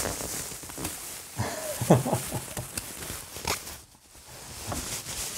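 Plastic wrap crinkling and rustling as it is pulled off a vacuum-compressed stack of foam panels, which expand as the seal is released. A short voiced sound from the person, rising and falling in pitch, about two seconds in.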